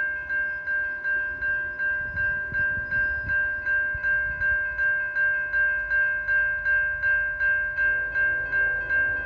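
Railroad crossing bell ringing steadily at about two and a half strikes a second, warning of an approaching train.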